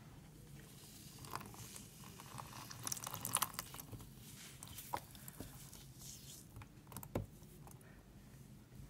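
Floral foam crushed in the hands, giving faint, irregular crackling and crunching. The crackling is busiest about three seconds in, and there is one sharp crack a little past seven seconds.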